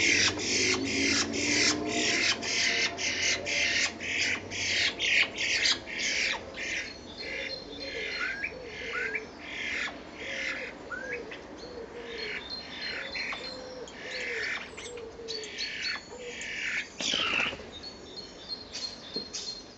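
Starlings giving rapid harsh, rasping calls, about three or four a second for the first several seconds. The calls then come more slowly, mixed with short whistled notes.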